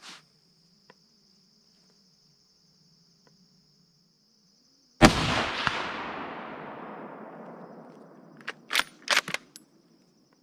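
A single .308 rifle shot from a Franchi Momentum bolt-action rifle about halfway through, its report rolling away over about three seconds. Near the end come a few sharp clicks of the bolt being worked. Crickets chirp steadily before the shot.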